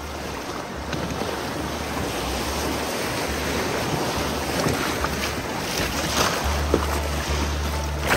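River water rushing in a steady, noisy wash that grows slowly louder, with wind rumbling on the microphone.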